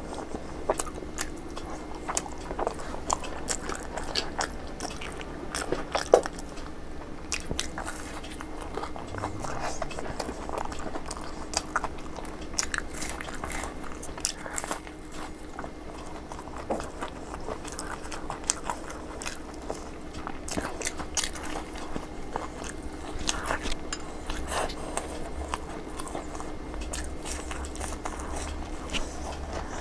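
Close-up chewing and biting of a fried samosa: a steady run of crisp crunches and wet mouth clicks, with no pause.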